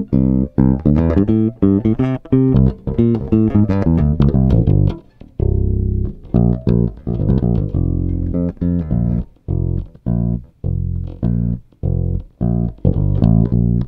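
Electric bass with flatwound strings, a Fender Dimension on its neck pickup, played fingerstyle through an EBS Multicomp compressor. It plays a line of plucked notes, quick and bright at first, then lower, longer-held notes from about five seconds in. The compression gives a tiny bit of extra mid-range sustain.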